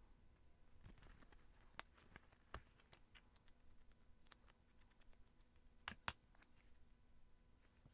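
Faint taps and paper rustles from hands handling sticker sheets and paper cut-outs on a cutting mat, with two sharper clicks close together about six seconds in.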